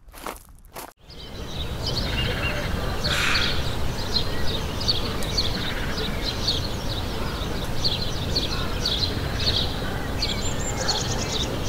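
A few faint crunching footsteps, then, about a second in, steady outdoor ambience: a low rumble under many small birds chirping and singing.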